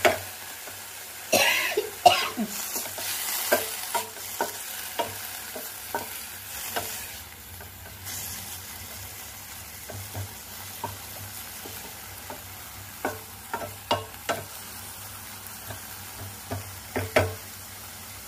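Wooden spatula scraping and knocking against a metal frying pan as mint leaves are stir-fried, over a low sizzle. The knocks come irregularly and are loudest about two seconds in and again near the end.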